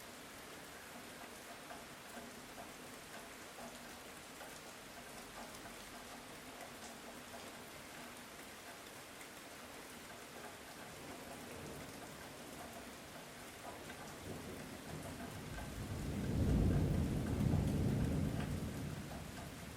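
Steady light rain, with a distant roll of thunder that swells up about three quarters of the way through, is loudest for a couple of seconds, and then fades away near the end.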